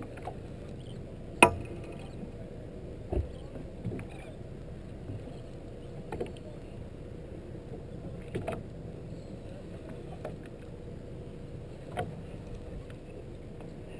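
Water washing against a small open boat's hull, with a steady low wash and a handful of sharp knocks on the hull, the loudest about a second and a half in.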